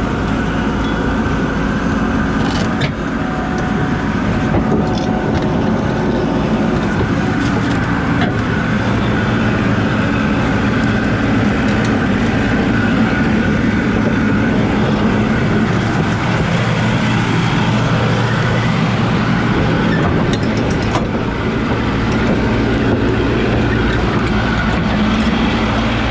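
Diesel engine of a Komatsu D51 crawler dozer running steadily as the dozer is driven off its trailer, with a few faint clicks along the way.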